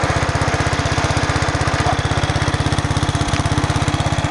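Sears Suburban 12 garden tractor's single-cylinder Briggs & Stratton engine running at a steady speed with a fast, even chugging beat.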